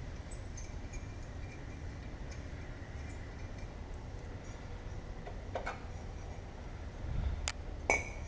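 Hand tools working on an engine: a low steady background rumble with faint ticks, then a few sharp metallic clicks and clinks in the last three seconds, with a dull thud just before them.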